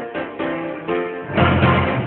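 Instrumental background music: a quick run of short plucked notes, with a fuller, louder chord about one and a half seconds in.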